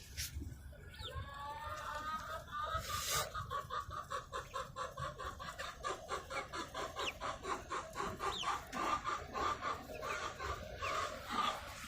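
Chickens clucking in a rapid, rhythmic run of short calls, several a second, that starts about a second in and keeps on nearly throughout. The chickens are alarmed, with geese raiding their food.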